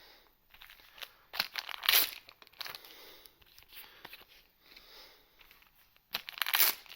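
Plastic booster pack wrapper crinkling and tearing as the pack is handled and opened, in irregular rustles with louder bursts about two seconds in and near the end.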